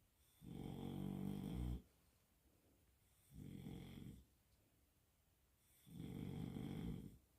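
French bulldog snoring: three slow, rattling snores, each lasting about a second, on the in-breath, typical of the breed's short, flat-faced airway.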